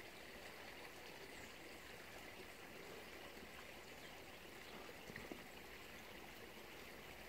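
Faint, steady rush of a small creek's flowing water, with a couple of soft ticks about five seconds in.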